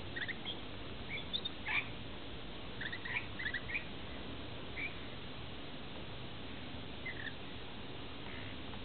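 Rainbow lorikeets giving short, soft chirps in scattered little clusters while feeding, over a steady background hiss.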